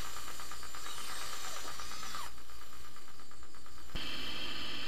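Sci-fi starship bridge background sound effect: a steady electronic hum and hiss with faint gliding tones and a fast, even ticking. Its tone shifts about two seconds in and again about four seconds in.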